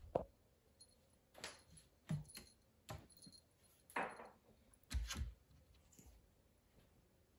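Cats pawing at a wooden cabinet: scattered soft taps and scrapes of paws and claws on the wood, with two dull thumps close together about five seconds in.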